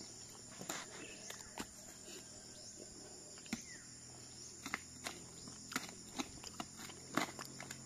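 Scattered short clicks, scrapes and knocks of a tool prying copra meat out of split coconut shells, coming more often in the second half, over a steady faint hum of insects.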